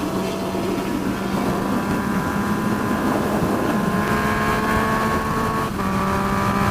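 Yamaha FZ-09 motorcycle's three-cylinder engine accelerating hard, its note climbing steadily in pitch, with wind rushing over the microphone. The note shifts a little before the end.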